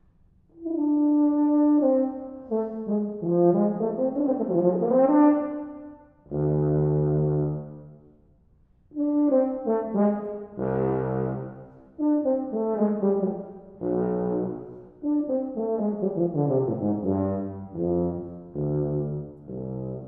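Meinl Weston 2182 tuba playing unaccompanied, in phrases of held notes and quicker runs. A long low note comes about six seconds in, then a brief pause, and later a run of notes stepping downward.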